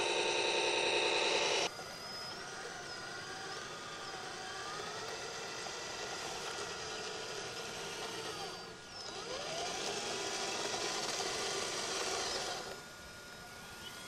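Radio-controlled model Liebherr 634 crawler loader running, a mechanical whine from its drive whose pitch rises and falls as it pushes and scoops sand. The whine is loudest at the start, drops abruptly about two seconds in, dips briefly about two thirds through and falls away again near the end.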